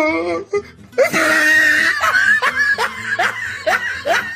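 A person laughing hard in a run of short repeated bursts, about three a second, from about a second in, over background music.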